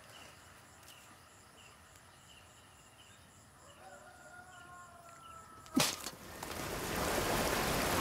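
Faint chirping, then a single sharp crack just before six seconds in as a coconut is smashed against a stone. A loud, steady rush of water swells up after it, water surging through an opened wooden sluice into a rice field.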